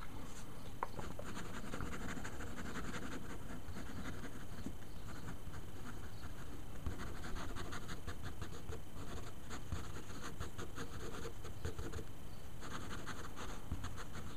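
Uni-pin fine liner ink pen scratching across paper in quick short strokes, in several runs with brief pauses between them.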